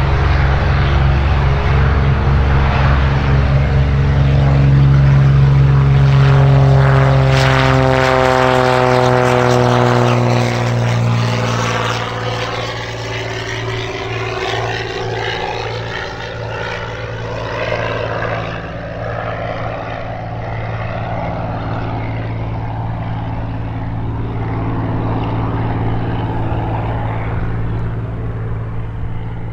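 GippsAero GA8 TC-320 Airvan's turbocharged Lycoming six-cylinder engine and propeller at full take-off power. The pitch drops as the aircraft passes about eight seconds in, and the sound grows a little fainter as it climbs away.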